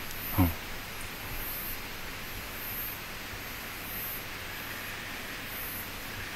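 Night insects: a steady hiss with a high chirp repeating about once a second, and a short falling call about half a second in.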